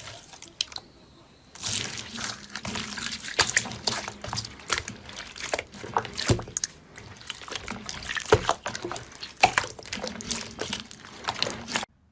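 Slime being squished and worked by hand: a dense run of wet clicks and pops that starts about a second and a half in and cuts off suddenly near the end.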